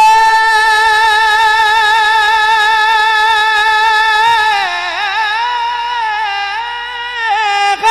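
A man singing a hamd (Urdu devotional hymn) unaccompanied into a microphone. He holds one long high note with a slight waver for about four and a half seconds, then slides down and holds a lower note.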